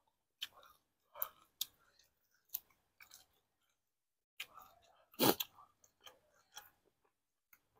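Close-up chewing of crisp fresh raw greens: separate crunches with short gaps, and one louder sound falling in pitch about five seconds in.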